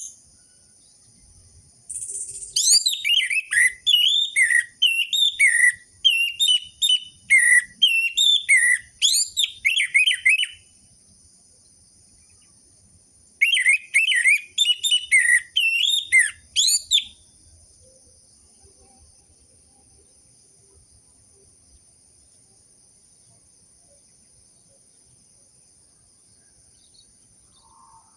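Orange-headed thrush (anis merah) singing rapid, varied, whistled phrases of falling and rising notes. A long bout is followed after a pause of a few seconds by a shorter one, over a faint steady high-pitched whine.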